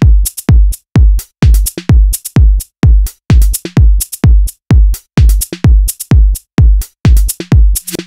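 Electronic dance music with a heavy kick drum at about two beats a second, the sound pumping and falling away almost to nothing between beats.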